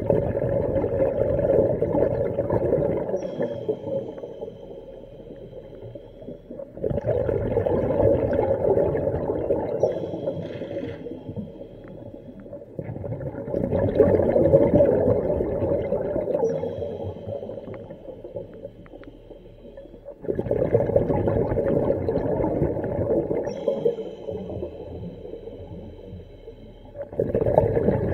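A diver breathing underwater through a hookah regulator: long bursts of exhaled bubbles about every seven seconds, quieter between breaths.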